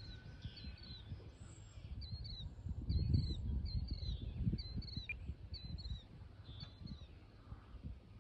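A songbird chirping over and over, short high notes about one or two a second, over an uneven low rumble that swells around the middle.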